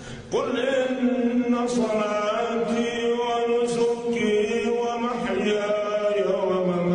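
An elderly man chanting in Arabic into a microphone, in long, drawn-out melodic phrases; a new phrase begins on a rising glide just after the start.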